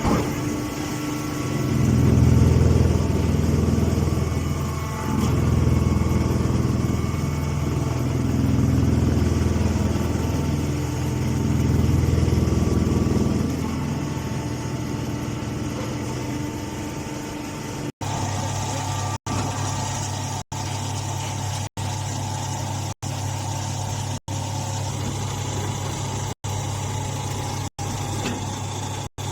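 Hay baling machine running steadily, its drive surging louder and easing back several times before settling into a steady hum. Near the end the sound cuts out briefly about once a second.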